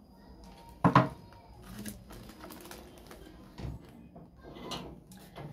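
Groceries being handled and set down on a surface: a sharp knock about a second in, a softer one later, and faint clicks between.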